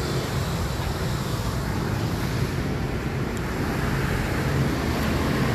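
Steady street traffic noise, vehicle engines running with a low hum, growing slightly louder near the end.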